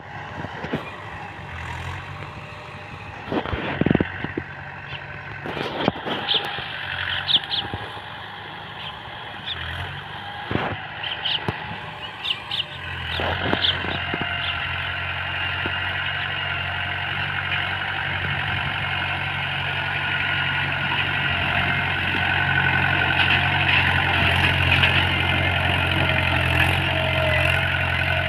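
Mahindra 475 tractor's diesel engine running steadily as it pulls a tined cultivator through the soil, growing louder about halfway through as the tractor nears. A few sharp thumps in the first half.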